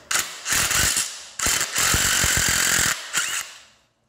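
Cordless driver with a 9/16 socket spinning out the motor mounting bolts on a Pentair Whisperflo pool pump, in two long runs of a rattling mechanical sound, about one second and then a second and a half, followed by a few short clicks.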